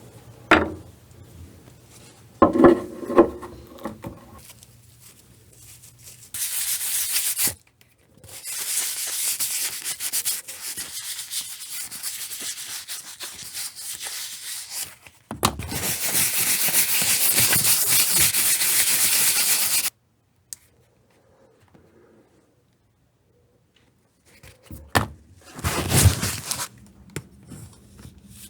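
Abrasive rubbing on leather in long, even passes: a short one, then about seven seconds, then a louder stretch of about four and a half seconds. A few knocks and a short creaking rub come before them, then a pause with handling knocks near the end.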